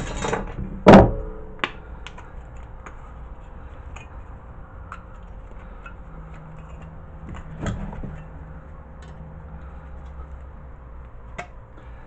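Aluminium cooling fins being pried and worked loose from a microwave oven magnetron: one sharp metal knock about a second in, then a few light clicks and scrapes over a low steady hum.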